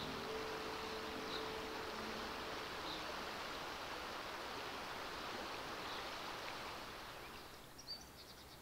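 Steady rushing of river water, fading out near the end. A last held music note dies away in the first two seconds.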